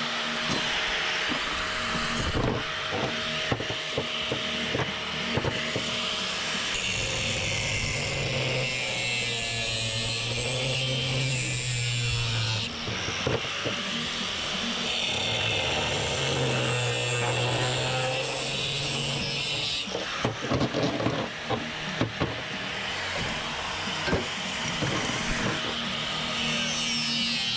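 A power tool cutting through brass and steel scrap pipe fittings in two long cuts of about five seconds each, with knocks and clatter of metal pieces being handled between the cuts.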